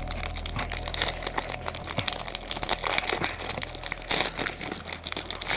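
Foil trading-card booster pack being crinkled and torn open: a dense, irregular crackling of the wrapper.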